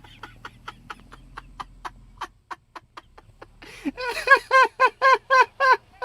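A bird, fowl-like, clucking: a run of short, quick clucks, then a rapid series of about seven louder calls, each rising and falling in pitch, in the last two seconds.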